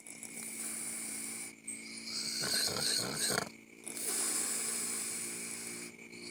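A sleeping person snoring in long, hissy breaths, about three of them, with short pauses between.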